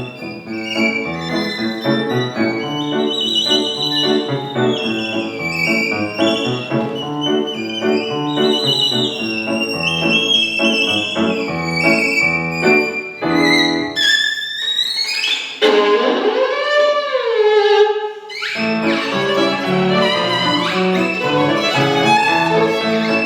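Violin and piano playing a lively classical piece, the violin high above the piano chords. A little past halfway the piano stops and the violin plays alone in wide sliding swoops of pitch. Then the piano comes back in under the violin.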